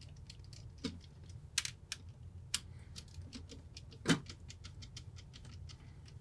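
Scattered light clicks and taps of a screwdriver and small metal parts against an aluminium power bar housing, with a few sharper clicks among them.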